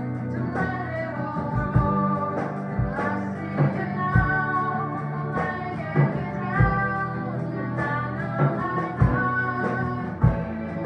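A small live band playing a song, with electric guitar, drum kit and a singing voice; the drum beats fall about once a second.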